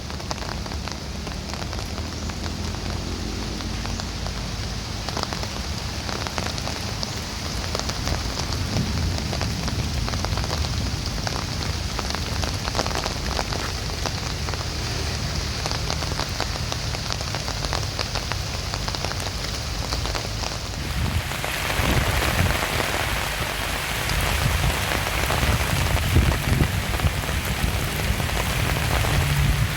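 Heavy rain falling, a steady hiss over a low rumble; about twenty seconds in the hiss becomes louder and fuller.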